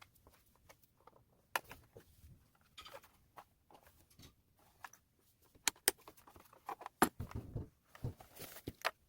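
Scattered light clicks, taps and brief rustles of small objects being handled, with the loudest taps about six and seven seconds in.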